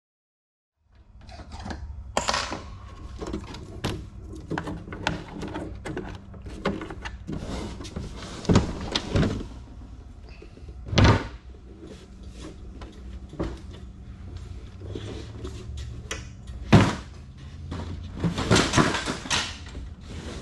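Knocks, bumps and thuds of a heavy Epoch 460 Ah 12-volt battery being stood on end, tilted and laid down on a plywood board, while the stuck cells are being worked out of the case. It starts about a second in, with a handful of louder thumps, over a steady low hum.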